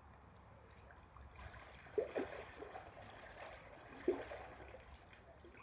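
Faint water sloshing and trickling in an above-ground garden pool as someone moves through it, with a couple of small splashes about two and four seconds in.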